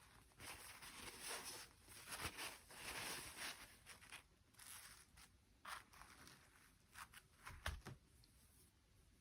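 Faint rustling and crinkling of toy packaging being handled, in short bursts over the first half, followed by a few light clicks and taps.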